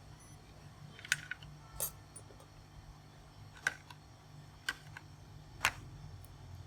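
Scattered light clicks and taps of small tools, about six in all, over a steady low hum.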